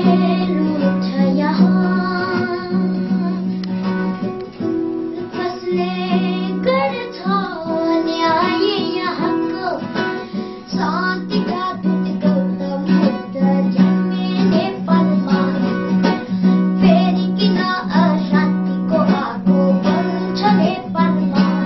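A young boy singing a song to a strummed acoustic guitar accompaniment.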